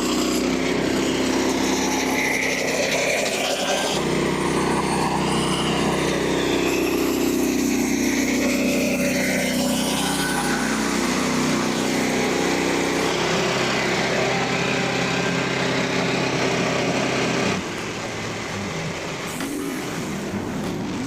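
Small gasoline engine of a portable bandsaw sawmill running steadily under load while its Stellite band blade saws through an oak log. About three-quarters of the way through, the sound changes abruptly and becomes a little quieter.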